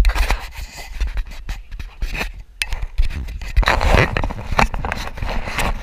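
Camera handling noise: irregular scraping and rubbing with many sharp knocks and a low rumble.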